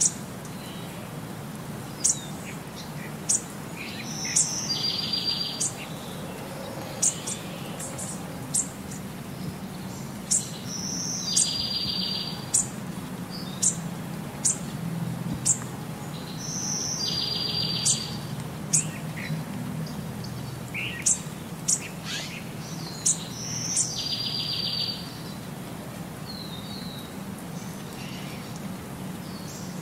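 Birds chirping: sharp high chirps scattered throughout, and a short, rapid trill phrase that recurs about every six and a half seconds, over a low steady background hum.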